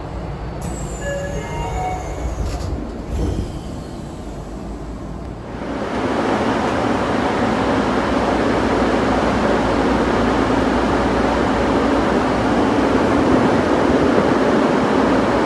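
Interior of a Tokyo Metro 9000 series subway car getting under way. For the first five seconds there is a high electric whine falling in pitch and a run of short tones stepping up in pitch. From about six seconds in, the steady louder running noise of the train at speed takes over.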